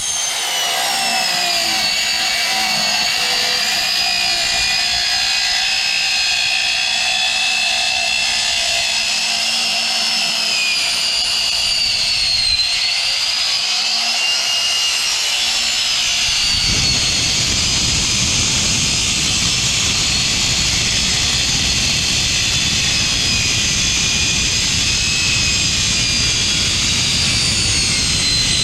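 Power saw with a Diablo blade cutting through an aluminium motorcycle exhaust muffler, a high-pitched whine that sags in pitch as the blade bites into the metal. About halfway through, a rougher, lower rasp joins the whine.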